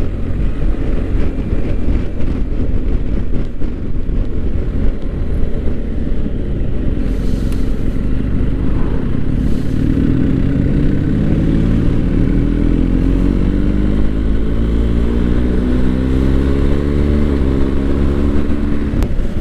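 BMW GS boxer-twin motorcycle engine running under way with a steady rush of wind. Over the second half its pitch climbs steadily as the bike accelerates.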